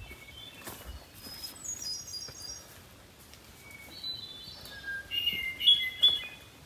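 Songbirds singing in the forest canopy: several phrases of short, high whistled notes, one stepping down in pitch about two seconds in, with the loudest phrase near the end.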